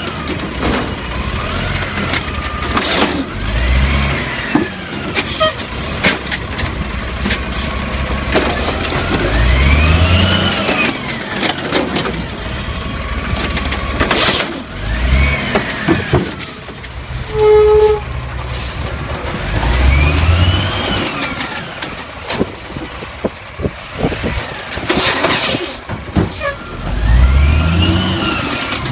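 Automated side-loader garbage truck working: the engine revs up and falls back again and again as the hydraulic arm lifts and dumps recycling bins, with sharp air-brake hisses in between.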